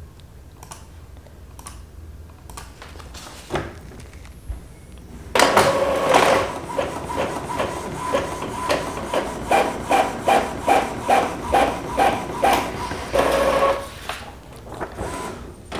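Epson L3210 inkjet printer printing a page: after a few faint clicks, its paper feed and print-head carriage start about five seconds in, running with a steady whir and a rhythmic pulse of about two to three a second, and stop about two seconds before the end.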